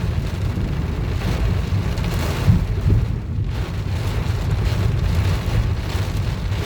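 Heavy rain pelting a car's body, a dense steady patter over a deep rumble, with one sharper thump about two and a half seconds in.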